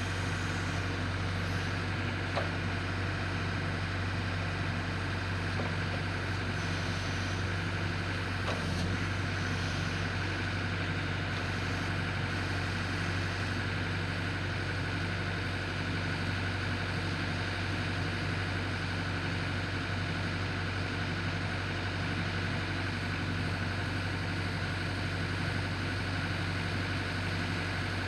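Engine running at a steady speed with a deep, even hum that does not rev up or down, with a couple of faint clicks.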